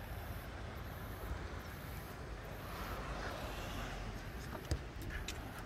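Wind rumbling on the microphone over a steady outdoor hiss, with a few light clicks about five seconds in.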